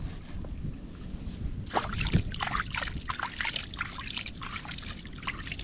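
Stream water splashing and trickling as a hand scoops it over a fish to rinse it, starting about two seconds in, with irregular splashes and drips.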